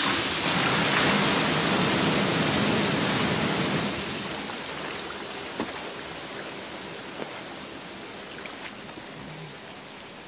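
Water gushing from a row of large bath taps into a deep bath: a loud, steady rush that slowly dies down over the second half. A few faint ticks come through later on.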